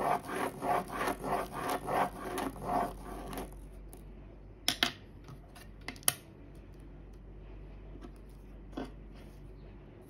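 Pen scratching on paper in rhythmic strokes, about three a second, as a plastic spirograph gear is turned round inside its toothed ring. The scratching stops about three and a half seconds in, followed by a few light clicks.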